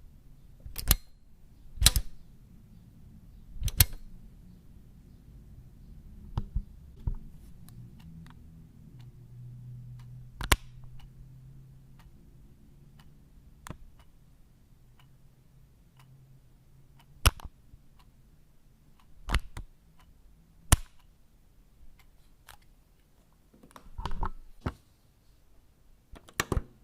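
Switches being flipped: sharp clicks at irregular intervals, some single and some in quick pairs or short clusters, about fifteen in all.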